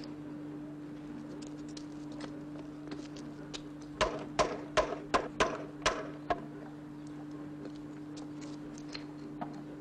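A quick run of about seven sharp knocks, roughly three a second, of wood being chopped on a chopping block, over a steady low hum.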